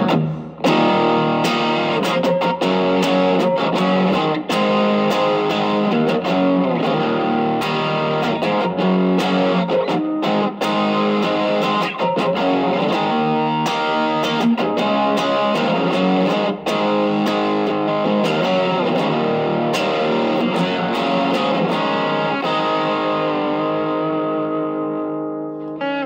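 Electric guitar (a Strat) played through an Ibanez TS808 Tube Screamer fitted with a 1980 Malaysian RC4558P op-amp, at a low-gain setting, giving a mild overdrive. Chords and notes are picked continuously, and the last chord fades out near the end.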